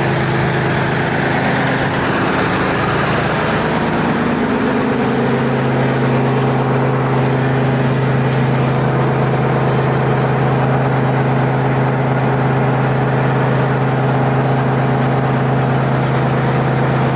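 Terex R-35 off-highway haul truck's diesel engine running steadily at a low, even speed. The engine note eases down slightly about four seconds in, then holds.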